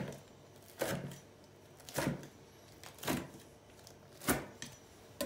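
A knife chopping through a crisp-baked spinach börek and striking the wooden cutting board, one short crunching stroke about every second.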